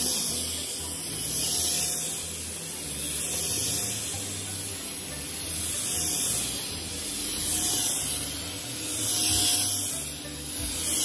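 Upright stick vacuum cleaner running over thick-pile carpet, a steady hiss that swells and fades about every two seconds as the head is pushed back and forth.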